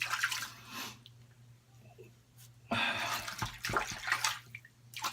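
Water splashing in a sink as a safety razor is rinsed: a short burst at the start and a longer, louder one about three seconds in.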